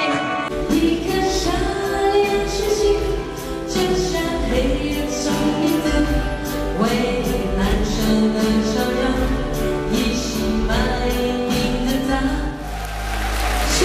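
A woman singing a slow melodic song live into a handheld microphone, with instrumental backing and a steady bass beneath. Near the end a wash of applause rises under the music.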